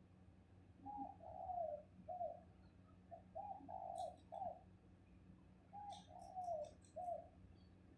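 A dove cooing: three phrases of about four soft hooting notes each, repeated every two to three seconds, with faint high chirps from a small bird in between.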